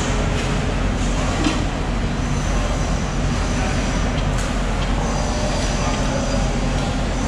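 A steady, loud rumbling din of running machinery, with a faint high whine coming in about two seconds in.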